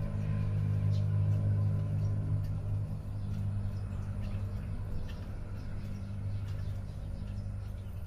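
A motor running with a steady low hum, loudest about a second in and easing slightly after. Faint short sounds sit above it.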